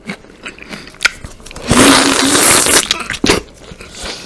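Close-miked eating of a ripe yellow peach: wet, juicy bites with scattered small clicks, then a long, loud slurp of flesh and juice about two seconds in, and a few more bites after it.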